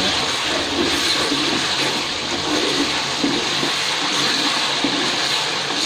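Rendang spice paste of ground chilies, shallots and garlic sizzling and bubbling in hot oil in a wok, a steady hiss, while a spatula stirs it. The paste is far into frying, cooked to the point where the oil has separated out.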